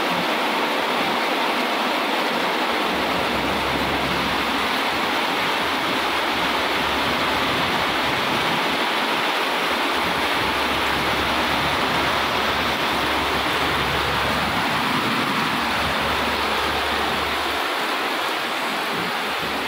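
A steady, even rushing noise, like running water, that holds the same level throughout.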